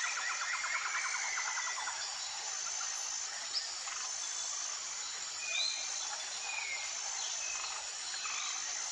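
Outdoor nature ambience: a steady high insect-like hum and hiss, a fast pulsing trill for the first couple of seconds, then scattered short chirps that glide in pitch.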